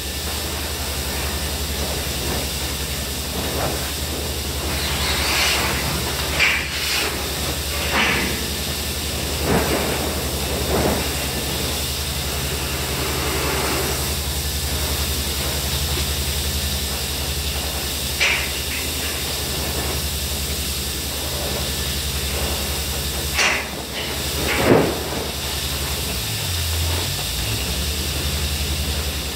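Steady low hum and hiss of running equipment, with scattered short scuffs and scrapes as knees and gloved hands shift over abrasive grit, most of them from about five seconds in.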